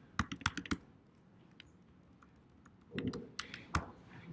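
Typing on a computer keyboard. A quick run of key clicks, a pause of about two seconds, then a few more keystrokes ending in a louder single keypress.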